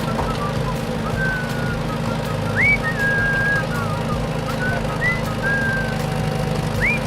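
Whistling: a string of high held notes, several starting with a quick upward slide, over a steady low hum.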